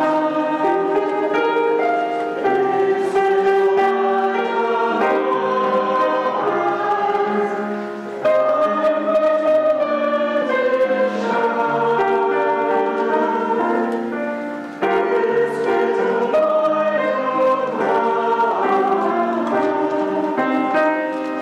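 A recorded church choir singing in harmony, many voices holding and moving between chords.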